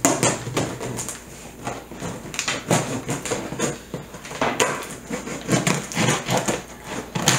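Knife slicing through packing tape on a cardboard shipping box, with tape ripping and cardboard scraping in a series of irregular rasping strokes.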